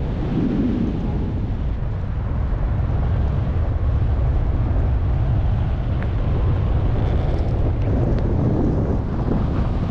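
Wind buffeting the microphone: a steady low rumble with a thinner hiss above it.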